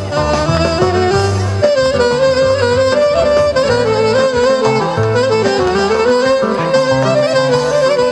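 Live Greek folk band music: a clarinet plays an ornamented lead melody over a steady drum and bass beat.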